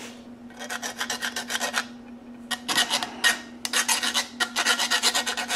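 Hand file rasping back and forth on the steel blade of a whirligig, scraping its copper-coloured paint coating down to bare metal for welding. Quick strokes come in runs, with a short pause about two seconds in.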